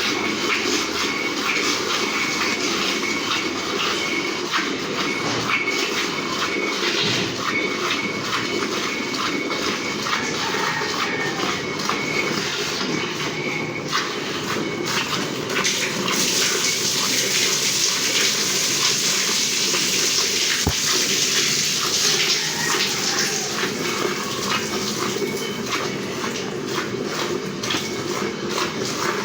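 Cow being milked by hand: repeated squirts of milk streaming into a pail, going on steadily.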